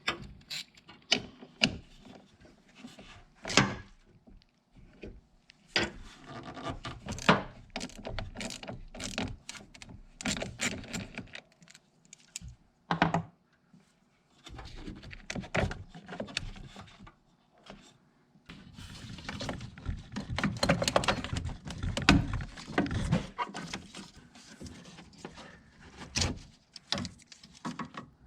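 Irregular knocks, clicks and metallic clatter of hand tools and parts being handled while a 10 mm nut and clips on a battery ground cable are undone, with a couple of brief lulls and busier clatter in the last third.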